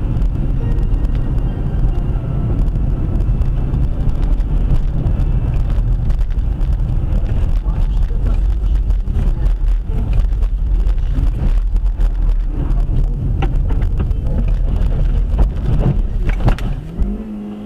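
Steady low rumble of a car's engine and tyres heard from inside the cabin on a snowy road. Near the end come a few sharp knocks and a louder jolt as the car leaves the road into the snow, and the rumble then drops away.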